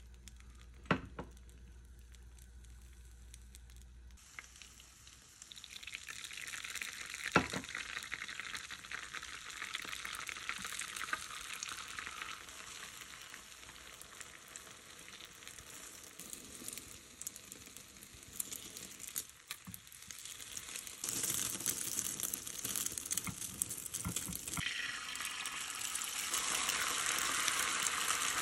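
Beaten egg sizzling in an oiled rectangular tamagoyaki pan over a gas burner. The sizzle starts a few seconds in and grows louder in the last few seconds as fresh egg hits the hot pan. There are two sharp clicks, the louder one about seven seconds in.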